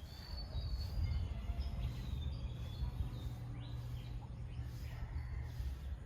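Small birds chirping and calling in short notes and brief glides, over a steady low rumble.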